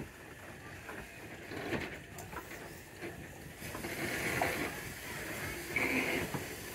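Steam locomotive standing still, simmering quietly, with faint scattered clicks and ticks. A soft hiss swells about four seconds in and again near six seconds.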